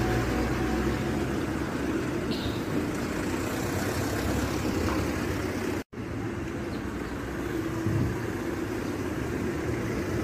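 Steady street traffic noise: a low rumble of cars on the road alongside, broken by a brief dropout about six seconds in.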